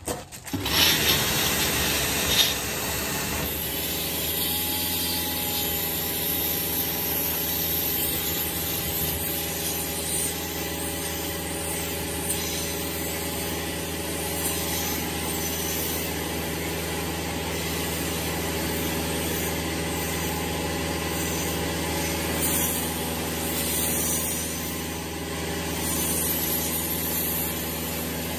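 Kärcher K3 electric pressure washer running steadily under load, its pump motor humming under the hiss of the high-pressure water jet as the car is rinsed off. A few knocks come in the first couple of seconds before the steady running settles in.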